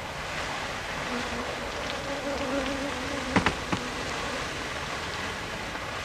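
A swarm of Africanized honeybees (killer bees) buzzing as a steady, wavering hum. Two short sharp clicks come about three and a half seconds in.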